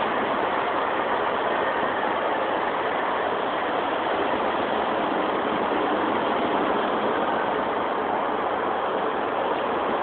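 Steady road traffic noise, an even wash of sound with no distinct events.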